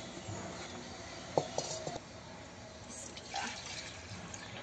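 Fresh cow's milk being poured from a plastic bucket into a small plastic mug to measure the yield. About a second and a half in there is a sharp knock with a short ring.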